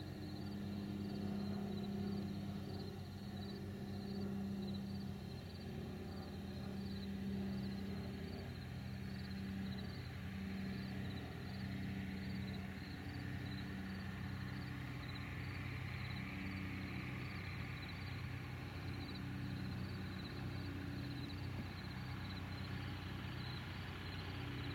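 Cessna 162 Skycatcher's four-cylinder Continental O-200 engine running at low power while the plane taxis, a steady low drone that wavers slightly.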